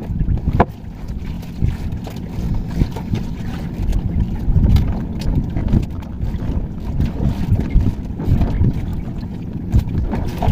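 Wind buffeting the microphone, a low rumble that swells and drops in gusts, with a single brief click just after the start.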